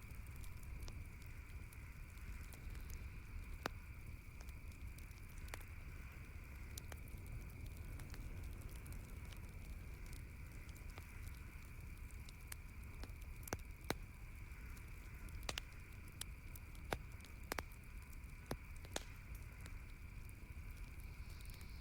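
Wood campfire crackling: irregular sharp pops and snaps throughout, a run of louder pops in the second half, over a steady low rumble.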